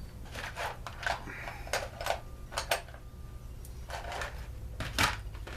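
Clicks and clinks of tools and small metal parts being handled on a workbench, a scattered series of knocks with the loudest about five seconds in, over a low steady hum.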